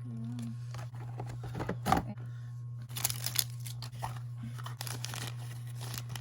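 Plastic and paper doll packaging being torn open and crinkled in bursts, with a sharp knock about two seconds in.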